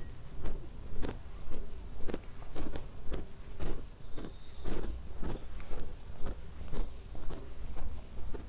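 Footsteps of a person walking at a steady pace, about two steps a second, each a short crisp scuff, over a low rumble.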